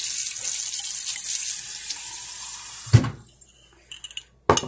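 Kitchen tap running steadily for about three seconds, then turned off with a knock. A short clink follows near the end.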